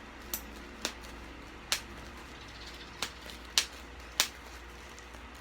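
Bubble wrap being popped by hand: about six sharp single pops at irregular intervals.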